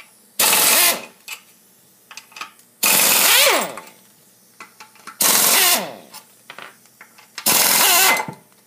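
Cordless power tool with a 12 mm socket spinning out four bolts from an engine's gearbox housing, one after another: four short bursts of a couple of seconds apart, each falling in pitch as it stops.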